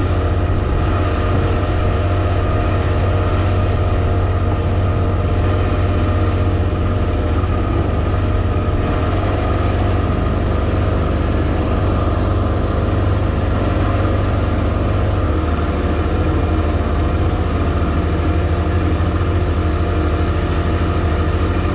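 40 hp outboard motor running steadily at speed, pushing the boat through open water, with the rush of water and wind along the hull.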